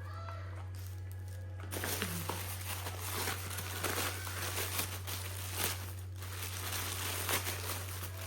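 Plastic packaging being crinkled and pulled open by hand, a dense irregular crackling with many small snaps that starts about two seconds in, over a steady low hum.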